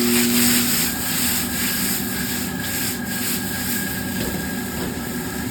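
Carrots, zucchini and mushrooms sizzling in a very hot oiled wok while being stirred and scraped around the pan, loudest for about the first second.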